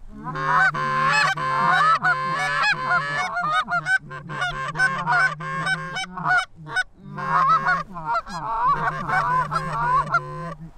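Rapid, overlapping goose honks and clucks, loud and close, over a low steady drone, with a short break a little past the middle.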